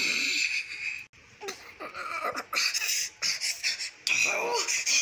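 A child's breathy laughter and panting in short broken bursts, with a brief pause about a second in.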